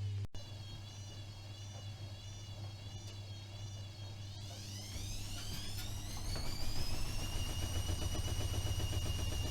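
AEG Öko-Lavamat 76730 washing machine's drum motor whining with a wavering pitch while the drum turns slowly to balance the load. About four and a half seconds in, the whine rises steadily in pitch and the machine gets louder as the drum speeds up into the spin.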